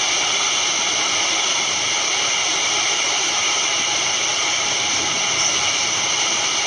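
Steady, loud hiss that does not change, high-pitched, with no other events.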